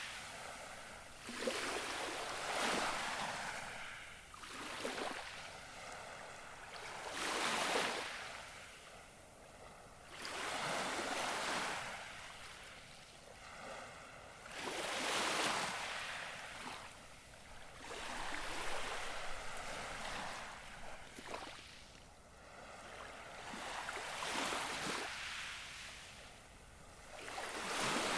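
Gentle sea waves lapping on the shore, each one a soft swell of splashing that rises and falls, about every two to four seconds.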